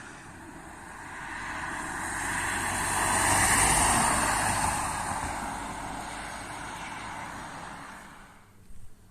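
A road vehicle driving past, its tyre and engine noise swelling to a peak about four seconds in and fading away by about eight and a half seconds.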